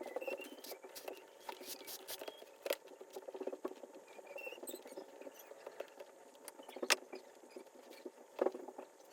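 Hands working an old Sears 1628 leather baseball glove: a stream of scratchy rustling with small clicks and taps, and two sharper knocks near the end.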